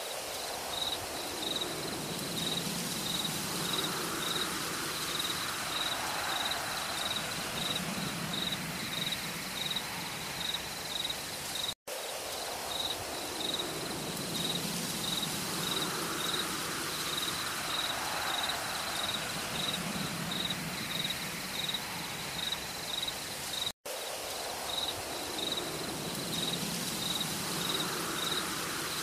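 Forest ambience: insects chirping in even, rapid pulses, about two or three a second, over a rain-like hiss, with soft low swells every few seconds. The same stretch repeats as a loop, with a brief dropout about every twelve seconds.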